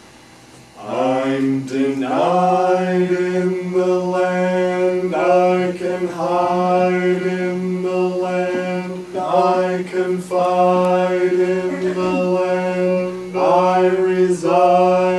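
A band playing a slow, droning passage live: after a brief lull, a steady low drone sets in about a second in, with long held notes laid over it, each new note sliding up into pitch every few seconds. There is little or no drumming.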